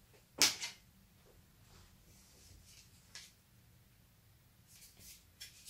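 Quiet handling sounds: a short rustle about half a second in, a faint click, then soft brushing and scraping near the end as a long wooden pattern ruler is laid and slid across fabric.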